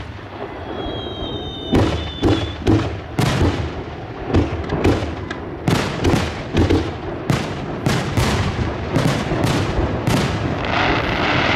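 Aerial fireworks shells bursting in rapid succession, a quick series of sharp booms. A brief whistle sounds about a second in, and near the end the bursts give way to a dense crackle.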